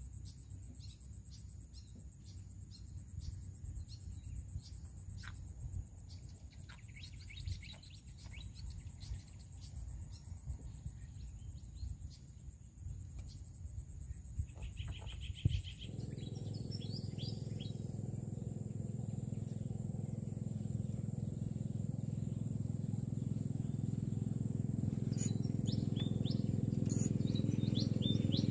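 Birds chirping with scattered clicks over a steady high insect tone. About halfway through, a small boat engine starts suddenly and runs steadily, growing louder toward the end.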